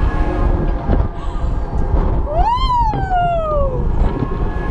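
A fairground ride rider's long whooping cry, about two seconds in, rising briefly and then sliding down in pitch for about a second and a half. It is heard over a steady low rumble of wind buffeting the microphone as the gondola swings.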